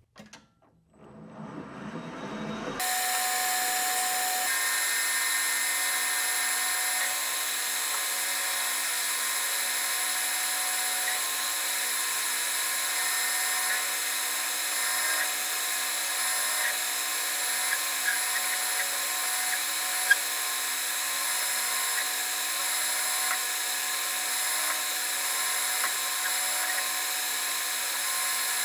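Metal lathe running and turning down a round metal bar, a steady machining sound with many held tones that starts abruptly about three seconds in. A single sharp tick sounds about two-thirds of the way through.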